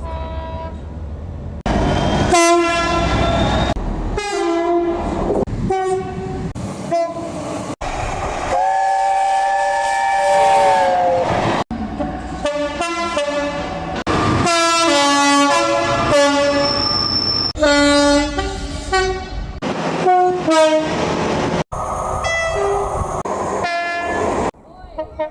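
A quick series of British train horn blasts cut together from different trains, mostly short two-note horns stepping between a higher and a lower tone. About nine seconds in comes one longer, fuller chord that droops slightly in pitch at its end.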